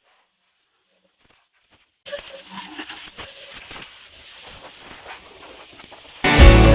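About two seconds of near silence, then a steady hiss for about four seconds, after which guitar background music comes back in near the end.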